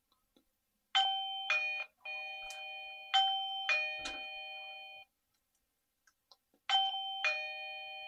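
Eufy E340 video doorbell playing its electronic chime after its button is pressed: a melody of about seven bell-like ringing notes over four seconds. The melody starts again near the end.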